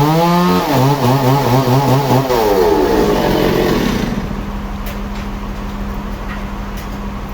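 A sawmill saw cutting through wood, its motor's pitch wavering and pulsing under load. About three seconds in the pitch falls away as the cut ends, leaving a steady, quieter machine hum with a few light ticks.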